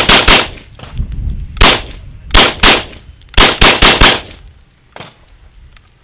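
Kriss Vector .45 ACP carbine fired in rapid semi-automatic strings: the end of a quick string in the first half-second, then a single shot, a pair, and four shots in fast succession, about nine shots in all. The shooting stops a little after four seconds in.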